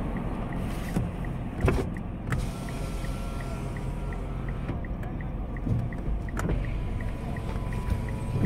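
Car cabin interior while driving slowly: a steady low rumble of engine and road noise, with a light regular ticking about three times a second and a few sharp knocks.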